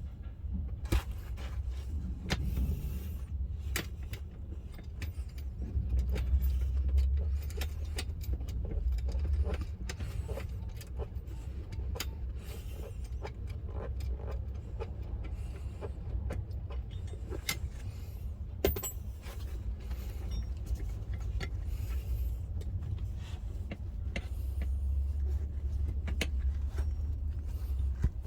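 Scattered small metallic clicks and taps of tools and bolts being handled while working on a truck seat's armrest, over a steady low rumble.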